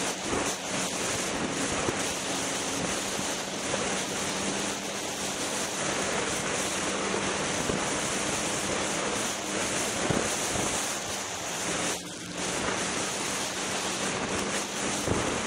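Wind rushing over the camera microphone on a Polaris Rush Pro-R snowmobile cruising at steady speed, with the sled's two-stroke engine a steady drone underneath. The rush briefly drops out about twelve seconds in.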